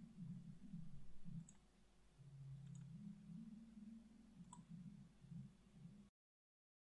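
A few faint computer mouse clicks over a low hum, in near silence; the sound drops to dead silence about six seconds in.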